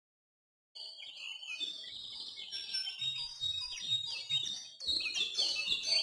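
Birdsong: many small birds chirping and twittering at once, with overlapping high chirps and quick down-slurred notes. It starts abruptly about a second in.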